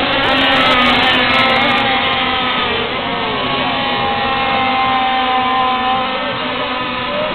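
High-pitched whine of several radio-controlled racing powerboats' small engines running flat out, their pitches rising and falling against one another as the boats pass.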